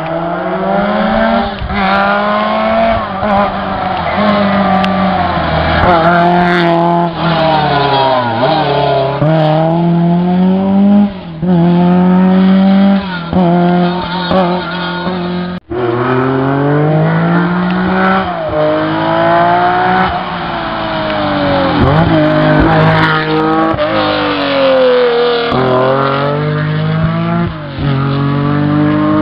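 Historic rally car engines revving hard up a winding stage. The pitch climbs through each gear and drops sharply at every shift and every lift for the bends. A sudden break about halfway starts the run of a second car, which sounds the same.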